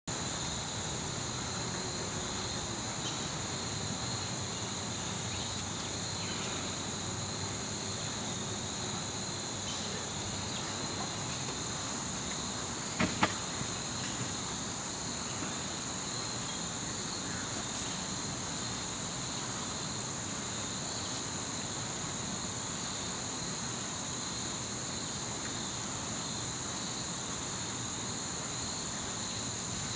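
Steady chorus of singing insects, a continuous high-pitched trill held at two pitches, with a few sharp clicks about thirteen seconds in.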